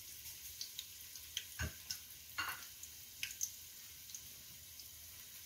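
Faint, sparse crackling and ticking of hot oil around fried onions in an aluminium pot, with one knock about a second and a half in.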